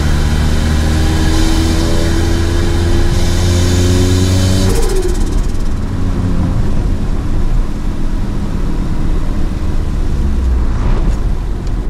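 Turbocharged 1.5-litre single-overhead-cam four-cylinder of a Mitsubishi Mirage pulling hard, its pitch rising steadily with a building turbo whoosh. Nearly five seconds in, the throttle closes and the pitch drops; with no blow-off valve, the turbo flutters. The engine then runs on at lower revs.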